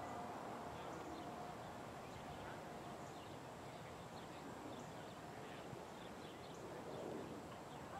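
Faint outdoor ambience: a steady background hiss with scattered, faint high bird chirps throughout.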